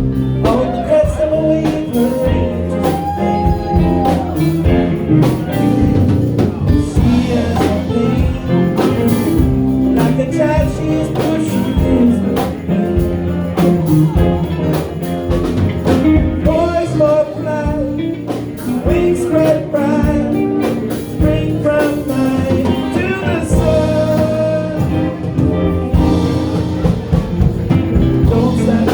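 A band playing a song with a singer, over a steady beat.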